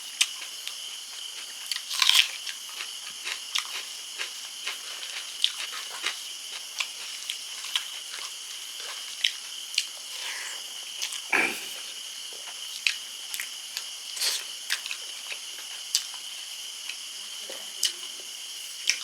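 Close-miked eating sounds: chewing and mouth smacks with scattered sharp clicks and crunches as a person eats a spicy fish curry. A steady high-pitched hiss runs underneath.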